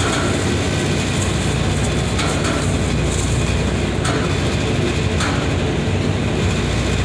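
Cars driving aboard a car ferry over its steel loading ramp, under a steady low rumble, with a few faint clunks.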